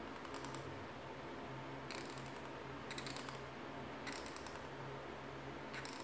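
Felt-tip marker scratching on paper in five short strokes, about a second apart, each a quick run of fine ticks, over a faint low hum.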